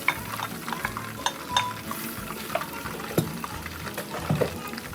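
Cooked rice frying in hot annatto oil in a pan, with a light sizzle and a spatula scraping and tapping against the pan as it is stirred.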